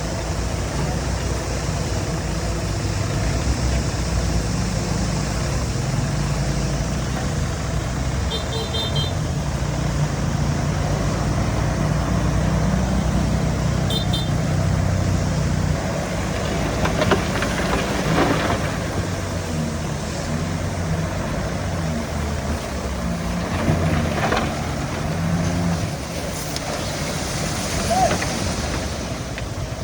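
Heavy diesel engine of a crawler bulldozer running steadily at work, with a few metallic clanks in the second half.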